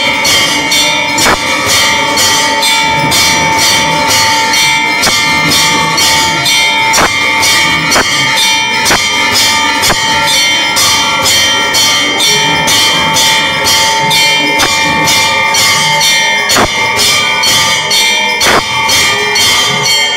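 Temple bells rung rapidly and continuously during worship, about three strokes a second, their ringing tones held throughout, with heavier strokes every second or two.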